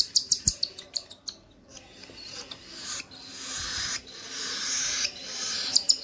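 Lutino cockatiel chick begging while being syringe-fed: a quick run of sharp high chirps in the first second, then a raspy, hissing begging call in drawn-out stretches of about a second each.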